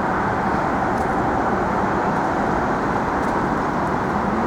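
Steady, unbroken city traffic noise with no distinct events.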